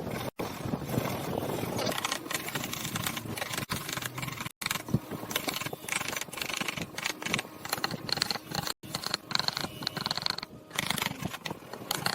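Woodworking sounds: irregular knocks, clicks and scrapes of wood being handled and worked, broken by brief cuts into silence, with a high whine for a couple of seconds after the middle.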